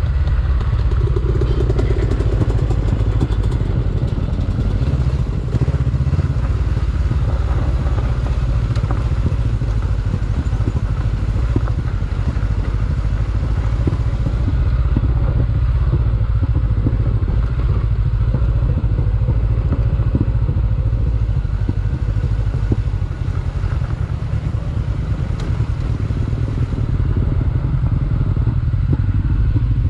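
Honda CB500X's parallel-twin engine running as the bike is ridden over a rough dirt trail. Scattered knocks and rattles come from the bumpy, rocky surface.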